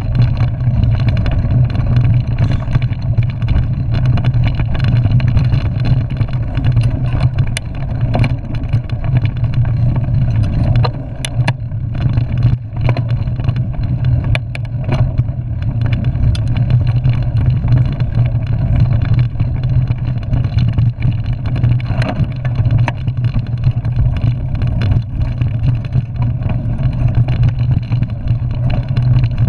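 Mountain bike rolling fast over a rough dirt trail, heard through a handlebar-mounted camera: a loud, steady rumble of wind and tyres, with scattered knocks and rattles from bumps.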